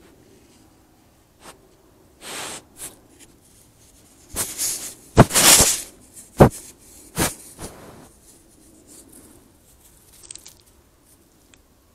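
White-tailed deer nosing the trail camera up close: a series of breathy puffs and sharp knocks against the camera, loudest about five and six and a half seconds in.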